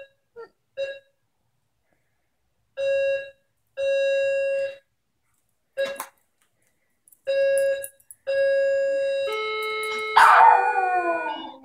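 Electronic doorbell beeping over and over in short irregular bursts of one steady tone, malfunctioning. Near the end a Maltese dog breaks into a loud howl that slides down in pitch over the last couple of seconds.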